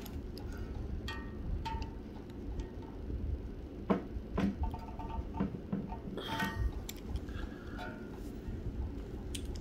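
Scattered metallic clinks and taps, some with a short ring, as a 13 mm socket is set over the valve stem seals and pressed onto the valve guides of a BMW M54 cylinder head.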